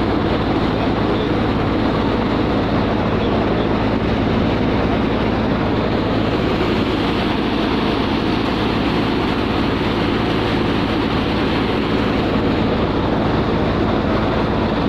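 A machine running steadily: a constant rushing noise over a low, even hum, with no change in speed or level.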